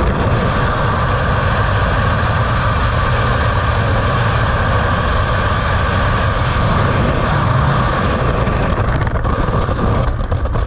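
Steady wind rush buffeting a helmet camera's microphone during skydiving freefall, with a heavy low rumble. It eases slightly near the end as the parachute opens.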